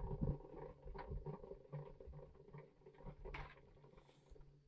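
Faint scattered clicks and scrapes of hands and tools working at the trailer's suspension, over a steady low hum.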